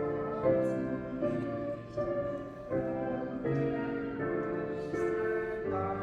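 Church choir singing a slow hymn in sustained chords, moving to a new chord about every three-quarters of a second.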